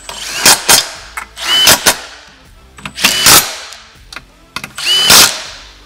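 Milwaukee Fuel cordless power tool spinning a 10mm socket in four short bursts, each about half a second long with a brief high whine as it stops, fully tightening the bolts of a winch mounting plate.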